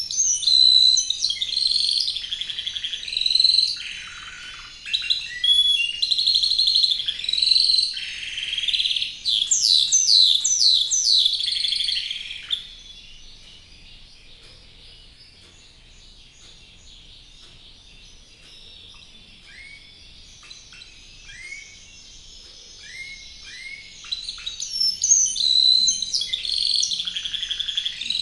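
Spanish Timbrado canary singing: long phrases of rapid trills and quickly repeated notes. After about twelve seconds the song drops to a quieter stretch of scattered short falling notes, and full song returns near the end.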